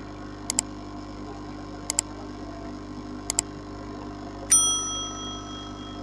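Sound effects of a subscribe-button animation: three quick double mouse clicks about a second and a half apart, then a bell ding that rings out for about a second. Under them runs the steady hum of the hot-air rework gun heating the board.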